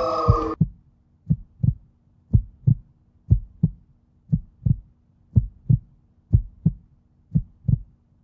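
Music cuts off about half a second in, followed by a heartbeat sound: paired low thumps, lub-dub, repeating about once a second.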